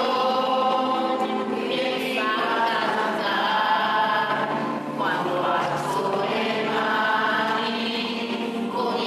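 A crowd of voices singing a religious song together, in phrases of a few seconds with long held notes.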